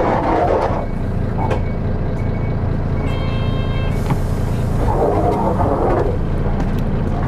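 Diesel engine of a Nissan Diesel Space Runner KK-RM252GAN city bus running steadily, heard from inside the bus. A short electronic beeping tone sounds about three seconds in.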